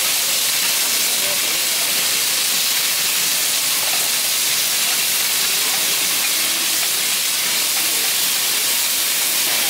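Boneless chicken thigh skewers sizzling on a hot flat-top teppanyaki griddle: a steady hiss of fat and juices frying.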